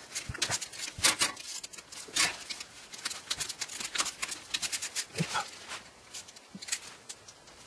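Scattered, irregular metallic clicks and clinks of hand tools on the rear main seal housing of a BMW E46 engine as its small bolts are worked loose.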